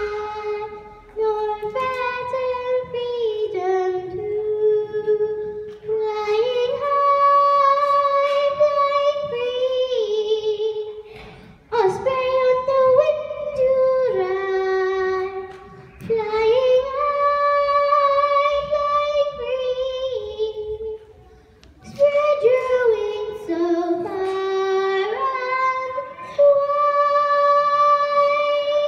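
A young girl singing a solo song into a microphone, a single melody in long held notes, with short breaks between phrases about every four to six seconds.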